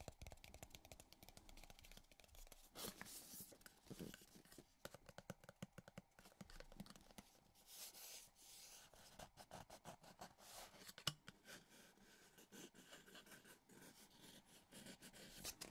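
Fingertips and nails scratching and tapping on the textured cardboard of a product box: a quiet, irregular run of quick scrapes and light taps, with one sharper tap about eleven seconds in.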